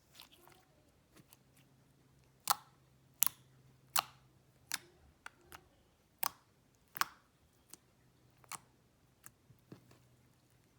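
Homemade slime being squeezed and pressed by hand, giving a series of sharp pops, about one every three-quarters of a second and loudest in the middle stretch.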